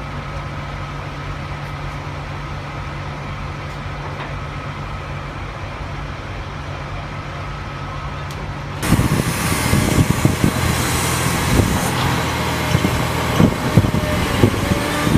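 A heavy vehicle's engine running steadily; about nine seconds in, it switches abruptly to louder engine noise with repeated knocks and clanks.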